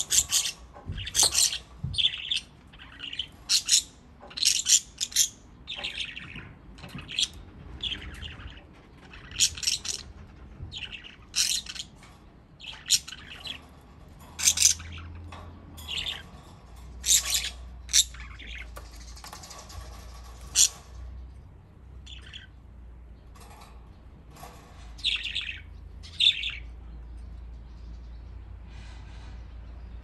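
Budgerigars chirping in a run of short, sharp calls, close together for the first twenty seconds, then fewer and dying away near the end. A low steady rumble sits underneath from about halfway.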